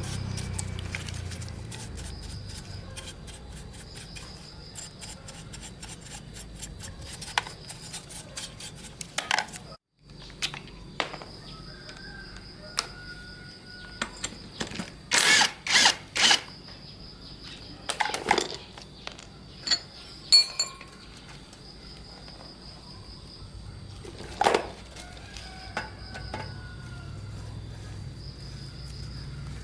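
Hand-tool work on engine parts: scattered clicks, taps and knocks of metal being handled, with a louder cluster of knocks about halfway through.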